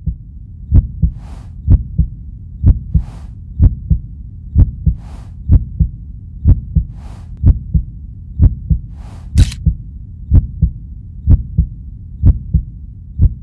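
Heartbeat sound effect: a double thump about once a second over a steady low rumble. A short breathy hiss comes about every two seconds and stops about two-thirds of the way through.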